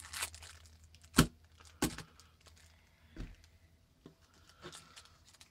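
Foil trading-card booster packs crinkling as they are handled and set down on a table, with a few sharp knocks; the loudest comes about a second in and two more follow within the next two seconds.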